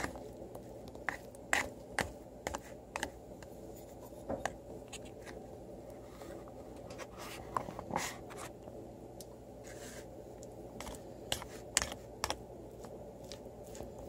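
Metal fork scraping and tapping against a plastic steamer tray while stirring rice and vegetables: irregular light scratches and clicks over a steady low hum.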